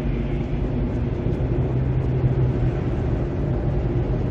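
Steady engine and road rumble of a car driving, heard from inside the cabin.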